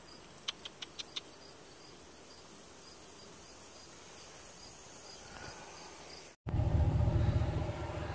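Insects chirping in a steady high trill with evenly repeating pulses, and a few sharp clicks about half a second in. After a sudden cut near the end, a pickup truck's engine runs with a steady low hum, louder than the insects.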